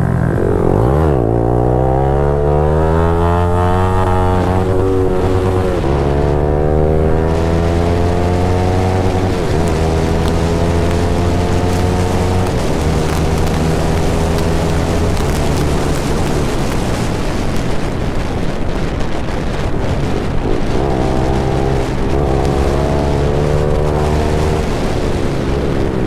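Motorcycle engine pulling through the gears: its pitch climbs steadily and drops at two gear changes about 6 and 9.5 seconds in, then holds a steady cruise. It eases off in the middle and picks up again about 20 seconds in.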